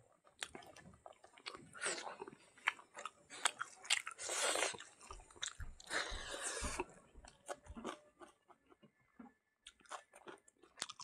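Close-up mouth sounds of a person eating smoked pork leg and rice by hand: wet chewing, lip smacking and crunching, with a few louder stretches of chewing about two, four and a half and six seconds in.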